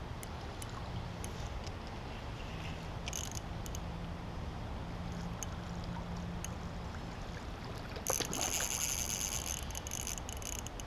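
Creek water running steadily under a low rumble, with small scattered clicks. About eight seconds in, a louder burst of noise lasts a couple of seconds.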